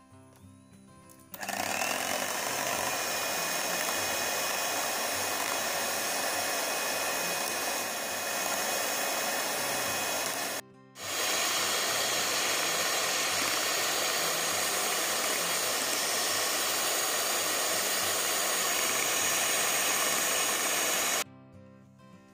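Electric hand mixer running steadily, its steel beaters whipping cream in a steel bowl toward stiff peaks. It starts about a second and a half in, cuts out for a moment near the middle, and stops about a second before the end.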